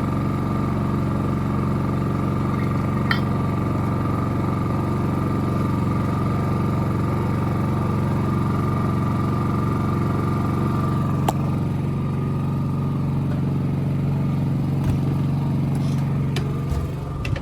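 WEN 56380i 3800-watt inverter generator running steadily in eco mode while powering a camper, a constant hum with a couple of sharp clicks over it.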